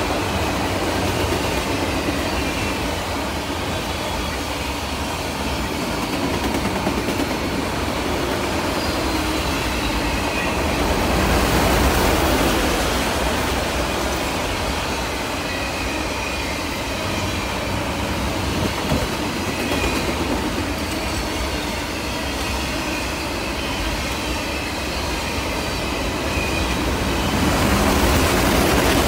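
Freight train of enclosed autorack cars rolling past, a steady rumble of wheels on the rails with faint, brief wheel squeals now and then. It gets louder about eleven seconds in and again near the end.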